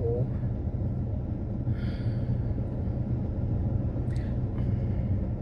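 Steady low rumble inside a car, with faint brief handling noises about two and four seconds in.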